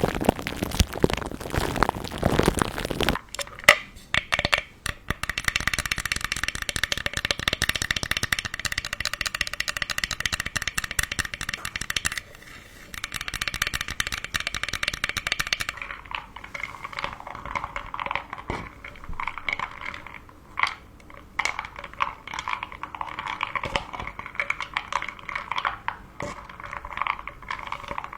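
Close-up crackling and crinkling of wrapped candies, with many small sharp clicks. It starts as a dense rush of pieces for about three seconds, then settles into scattered clicks and rustling.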